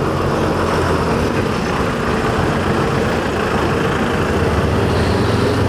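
Vehicle engines running at close range: a heavy tipper truck's diesel engine alongside a slow-moving motorbike, a steady low hum under an even rush of noise.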